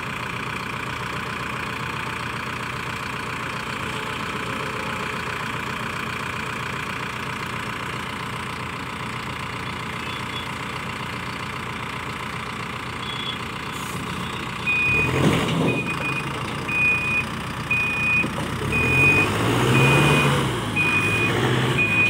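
Manitou 74.5 hp backhoe loader's diesel engine running steadily, then worked harder and revved up and down during the second half as the machine comes down off the trailer. From a little past midway its reversing alarm beeps about once a second.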